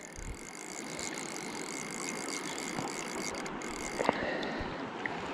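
Fly reel's click-and-pawl drag ratcheting steadily as a hooked trout pulls line off, with a single sharper click about four seconds in.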